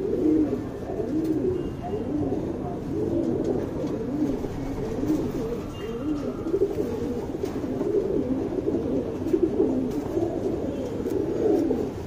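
Domestic pigeons cooing, low rising-and-falling coos that overlap one another without a break.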